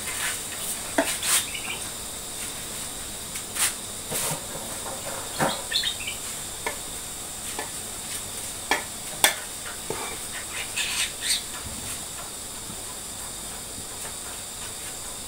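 Metal ladle clinking and scraping against aluminium cooking pots and a bowl in scattered short knocks while ingredients are scooped into a pot of coconut-milk curry, over a steady background hiss.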